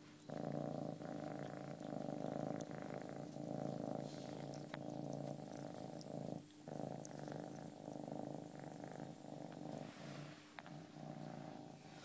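Domestic cat purring steadily close up, with a brief break about six and a half seconds in.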